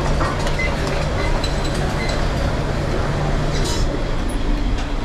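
Restaurant kitchen during service: a steady low drone of the extraction fans, with scattered light clinks of metal utensils and pans.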